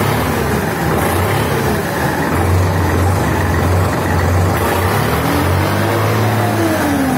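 Preet 3549 tractor's diesel engine running at idle, a steady low hum with slight rises in pitch near the end, played so its sound can be heard.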